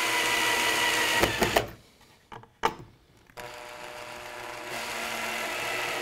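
Makita cordless drill-driver driving screws into a timber bracket. The motor whines for about a second and a half, its pitch dropping slightly, then stops with a few knocks. After a pause of about two seconds it runs again for the next screw.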